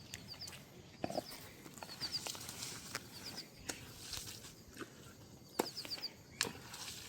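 Faint outdoor village ambience: small birds chirping in quick groups of three or four short high notes, with scattered light clicks and knocks.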